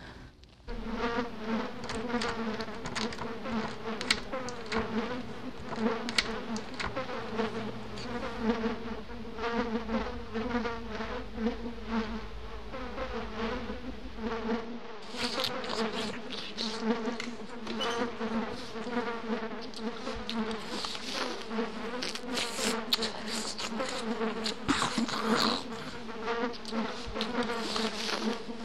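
A steady, wavering buzz like a swarm of flies or bees, dense with fast crackling clicks. A low rumble beneath it stops about halfway through, and the buzz turns brighter from there.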